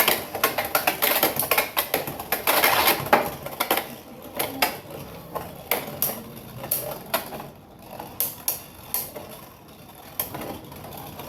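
Beyblade X spinning tops clashing in a plastic stadium: a fast rattle of clicks and knocks as they hit each other and the walls, thinning out and getting quieter after about four seconds as they slow down.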